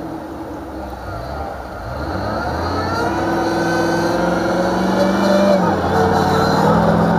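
Off-road racing 4x4 engines revving under load, growing louder from about two seconds in as the revs rise. The revs drop for a moment and climb again near the end.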